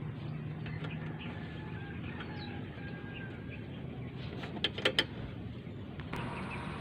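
A few sharp metallic clicks and taps from hand tools worked around a truck's air-brake air dryer, bunched together about five seconds in, over a steady low background hum.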